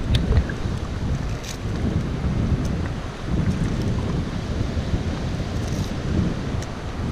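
Wind buffeting the microphone: a loud, uneven low rumble, with a few faint clicks over it.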